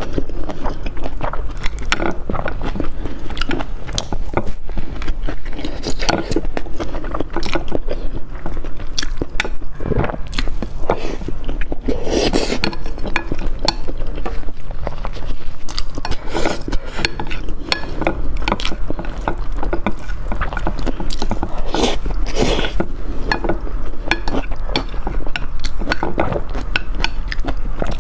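Close-miked eating: biting and chewing boiled fertilized eggs, with frequent small clicks and scrapes of shell and utensils, over a steady low hum.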